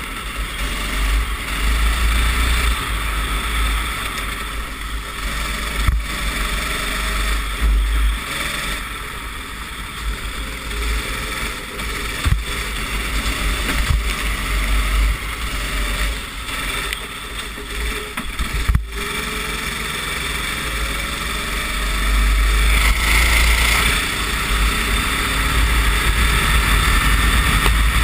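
Racing kart engine at race pace, heard from on board, its pitch rising and falling as it accelerates and slows, with wind buffeting the microphone and a few sharp knocks. It gets louder over the last few seconds.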